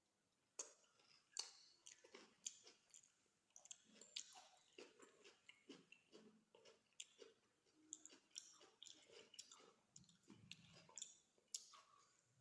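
A person chewing food close to the microphone, quietly, with irregular wet mouth smacks and clicks several times a second.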